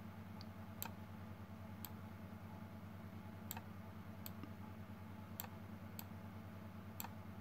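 Faint computer mouse clicks, about seven spaced irregularly roughly a second apart, over a steady low electrical hum.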